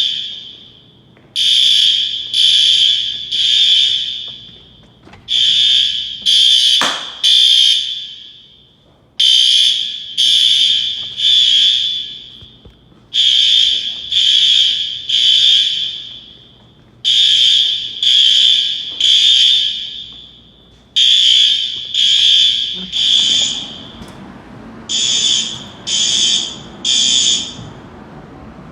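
Fire alarm horns sounding the temporal-three evacuation pattern: groups of three loud, high horn blasts, the groups repeating about every four seconds. A single sharp knock comes about seven seconds in.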